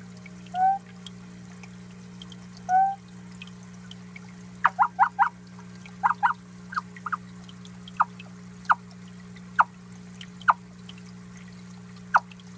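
Vietnamese mossy frog calling: two short hoots in the first three seconds, then a string of sharp squeaks, first four in quick succession, then singly about once a second. Water trickles underneath, with a low steady hum.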